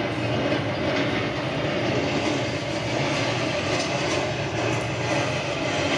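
A steady rumble of a train running on its rails, played as a stage sound effect.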